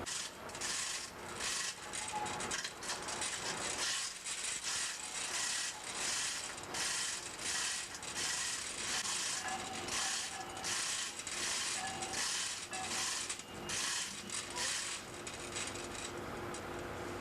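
A ratcheting mechanism worked in repeated strokes, about one to two a second, stopping near the end, over a steady machinery hum.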